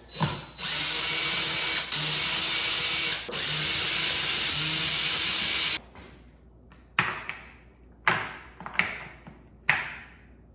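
Power driver running in three stretches with two brief breaks, unscrewing the T20 bolts that hold the fuel rail on a BMW S1000RR. It then stops, and four short sharp knocks follow as parts are handled.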